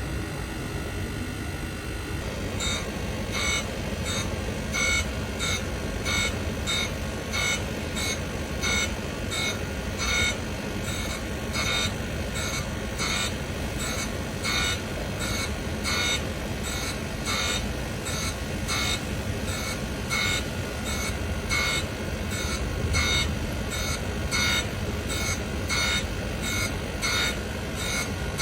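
Tangential chaser grinding machine running with a steady motor hum; from about two seconds in, the wheel gives short, regular bursts of high-pitched grinding about every half second, as it passes back and forth over the chaser.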